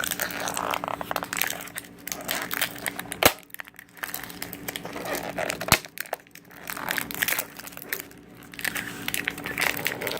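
Crinkling and crumpling of protective paper and plastic packaging being peeled off and handled, with two sharp clicks about three and six seconds in.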